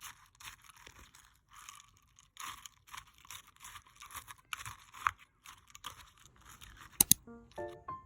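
Irregular scratchy scraping strokes, one after another. About seven seconds in come two sharp clicks close together, and piano music starts just after.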